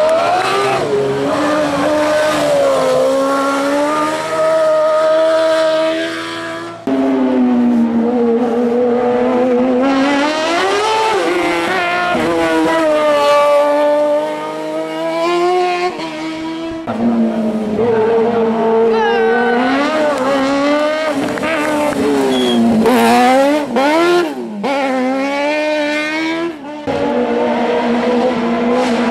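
Hill-climb race cars taking a hairpin one after another, their engines revving hard with pitch swinging up and down through gear changes and throttle blips. The sound cuts abruptly between cars three times.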